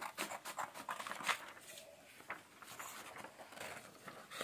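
Scissors snipping through a sheet of paper: a run of short crisp cuts, close together in the first second and a half, then fewer and further apart.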